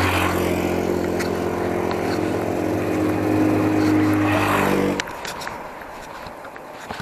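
Motor vehicle engine running with a steady pitched hum that cuts off abruptly about five seconds in. After that only a quieter rushing noise with a few sharp clicks remains.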